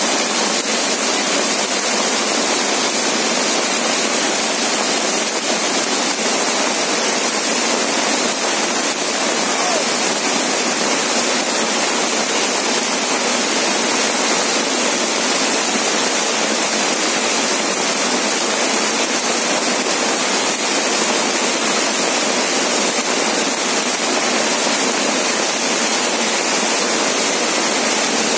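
Heavy rain mixed with hail pelting down on the street, pavement and terrace tables: a loud, dense, unbroken rush of noise with no let-up.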